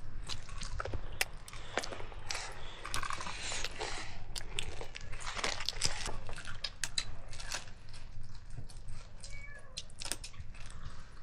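Close eating sounds, with many short crunches and clicks, and a few short high wavering calls.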